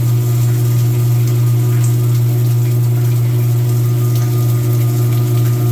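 Washing machine in its rinse cycle: a steady low machine hum with water running.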